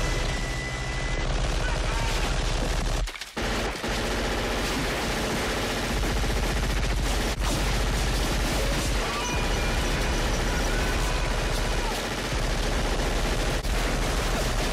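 Sustained heavy automatic gunfire: several weapons firing without let-up in one continuous barrage, with a brief break about three seconds in.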